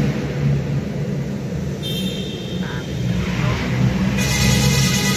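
Motor vehicle engine running with a steady low rumble. About four seconds in, a bright sustained sound with many steady tones comes in over it.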